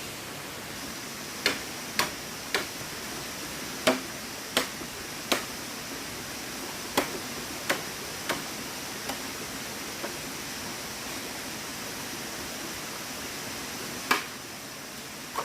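Steady rush of river water, broken by about a dozen sharp knocks or clicks at irregular intervals, most of them in the first ten seconds and one more near the end.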